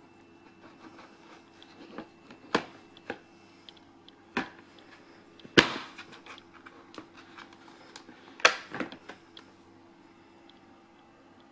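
Hard plastic knocks and clicks as a baby activity center's plastic leg tube is pushed and worked into its socket on the plastic base: a few separate sharp knocks, the loudest about five and a half and eight and a half seconds in, with lighter clicks between.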